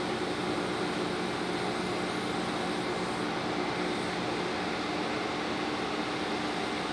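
High-amperage TIG arc (300+ amps) welding heavy-wall carbon steel pipe: a steady, even hiss with a faint hum underneath, unbroken throughout.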